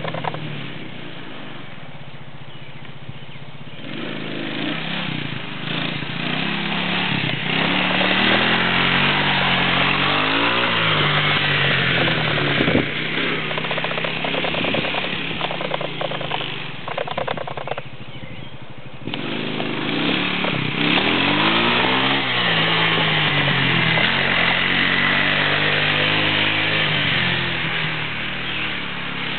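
2003 Arctic Cat 300 ATV's single-cylinder engine revving up and easing off again and again as it is ridden. The engine drops to a lower, quieter note twice, shortly after the start and about two-thirds of the way through, before climbing again.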